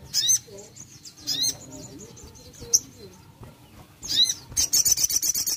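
Caged sogon songbird calling: short, sharp, hooked chirps about every second, then near the end a loud, fast trill of about ten notes a second.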